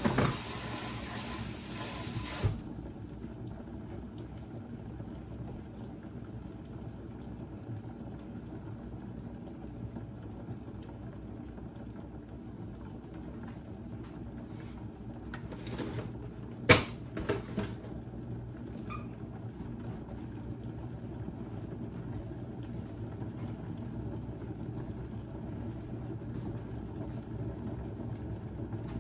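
Steady low rumble of a lidded stainless-steel pot of soup heating toward a boil on a glass-top electric stove. A kitchen tap runs at the start and stops about two and a half seconds in, and a few sharp knocks of dishes come about halfway through.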